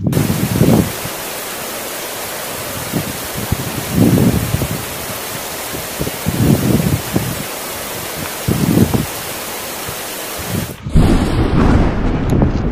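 Steady hiss of heavy rain with several low rumbles of thunder. The rain cuts off suddenly near the end, leaving wind buffeting the microphone.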